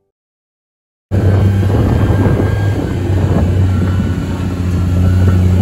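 About a second of silence, then a side-by-side utility vehicle's engine running steadily while driving along a rough grassy trail: a loud, steady low drone with a thin whine above it and rough road noise.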